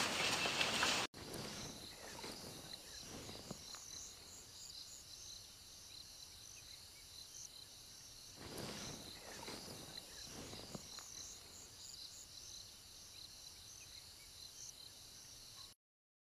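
A loud rush of noise for the first second, then outdoor evening ambience of insects chirping steadily in quick high repeated calls, with a few soft low rustles about halfway through. It cuts off to silence just before the end.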